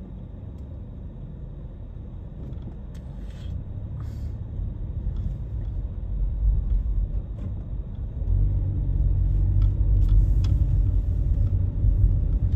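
Car engine and road rumble heard inside the cabin as the car moves off from a stop at an intersection and picks up speed. The rumble grows louder partway through and again about two-thirds of the way in, with a few faint clicks and ticks over it.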